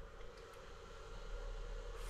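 Quiet room tone: a faint steady hiss with a low hum, no distinct sounds.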